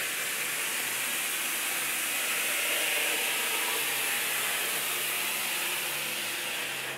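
Electrically driven glass sunroof sliding open: a steady hissing whir from its drive and track with a faint low hum, which cuts off suddenly near the end.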